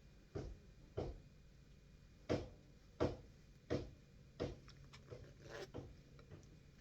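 Concealed zipper being run back and forth in short strokes: a series of brief rasps, about one every 0.7 s, as the slider, just squeezed tighter with pliers, is tested on the teeth.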